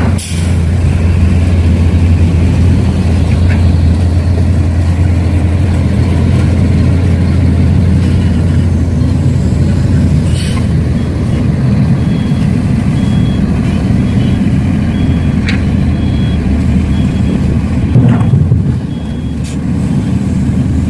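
Heavy truck diesel engine running steadily with a low hum, while a reversing beeper sounds repeatedly for several seconds in the middle. A few short knocks are heard, near the start, about halfway and near the end.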